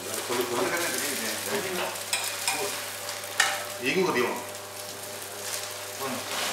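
Bread omelette sizzling steadily as it fries in a pan on a gas stove, with a few sharp clicks of metal tongs against the pan.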